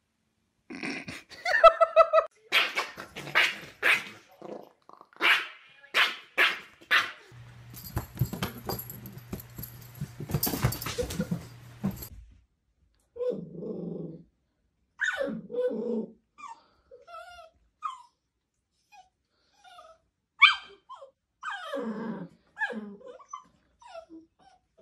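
Dogs barking and growling in separate bursts: a quick run of sharp yaps in the first few seconds, then, after a stretch of steady hum, a dachshund puppy giving short barks and low growls at its own reflection in a mirror.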